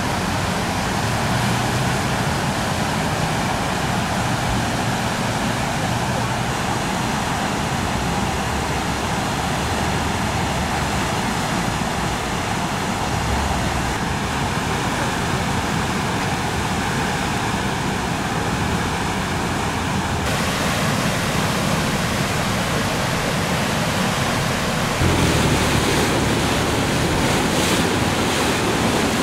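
Steady rush of fast-flowing floodwater. The sound changes abruptly about two-thirds of the way in, and again a few seconds later, where it gets louder.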